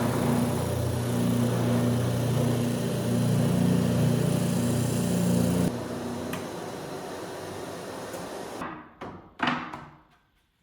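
Woodworking power tool running steadily with a low motor hum, then switched off and winding down. A few short knocks follow, the last one loudest, before the shop goes quiet.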